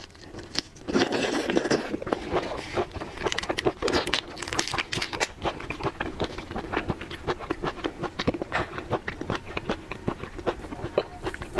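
Close-miked eating sounds from seafood being chewed and bitten, with dense, irregular crackles, clicks and scrapes throughout.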